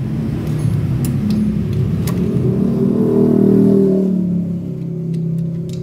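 A vehicle engine running nearby, its pitch climbing about three seconds in and falling away after four seconds, over a few light metallic clicks of tool work.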